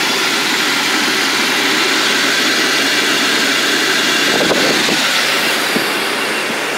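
Jeep Cherokee XJ engine idling steadily, not yet fully warmed up, fitted with a homemade cowl air intake, with wind noise on the microphone.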